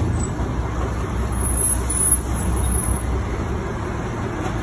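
Steady low rumbling background noise, with a brief click right at the start and a small knock about two seconds in.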